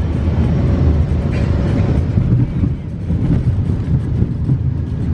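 Jet airliner cabin noise while rolling fast along the runway after landing: a loud, steady low rumble of engines and wheels.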